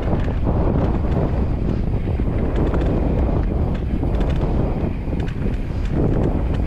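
Wind buffeting the microphone as a mountain bike rides fast down a dirt trail, over a steady rumble of tyres on the ground, with scattered small ticks and rattles from the bike.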